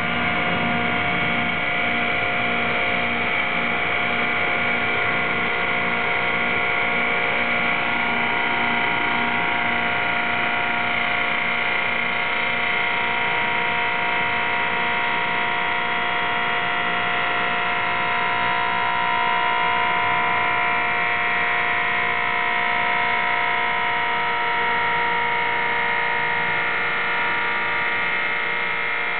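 Greenlee 960 SAPS electric hydraulic pump running with a steady motor hum. It is under load, driving the ram of a Greenlee 884 conduit bender through a bend in 3-inch rigid conduit.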